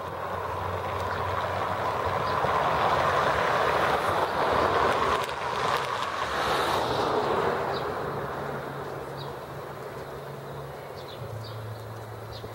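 A car driving past close by on a cobblestone street: the tyre and engine noise swells over a few seconds, peaks about halfway through, then fades away, leaving a low steady hum of traffic.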